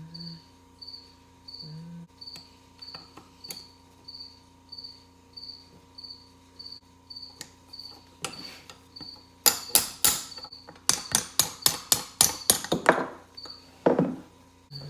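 A cricket chirps steadily in a regular, high-pitched rhythm, a little under two chirps a second. About halfway through, a quick run of sharp, loud metallic taps and knocks comes from work on a two-stroke dirt-bike engine being torn down, with one more knock near the end.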